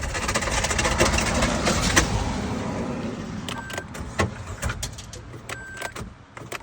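Vauxhall Z14XEP 1.4 four-cylinder petrol engine run with screws loose inside a cylinder, hammering with rapid, loud metallic knocking that thins out and fades after about three seconds. It is taken to be breaking itself apart: a piece of the block has been spat out.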